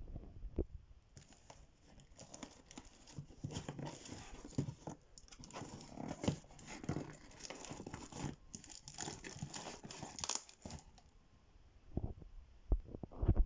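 Cardboard shipping box torn open by hand: paper, packing tape and plastic wrap ripping and crinkling in quick rips for most of the time. A few knocks follow near the end.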